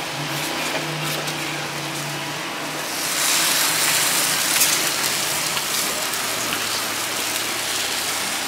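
Food sizzling in hot oil, the hiss growing louder about three seconds in.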